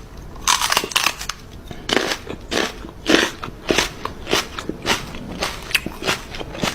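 A dog chewing something hard and crunchy, with loud crunches about twice a second.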